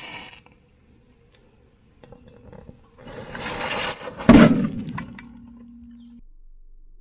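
Lit fuse of an 'atom bomb' firecracker hissing and sputtering for about a second, then the cracker going off in one sharp bang on a tractor's steel wheel disc. A low ringing tone follows the bang and cuts off suddenly about two seconds later.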